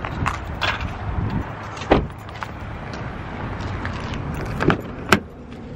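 Camera handling noise as the camera rubs against clothing, with scattered sharp clicks and knocks, the loudest about two seconds in and again near the end, over a steady low car rumble.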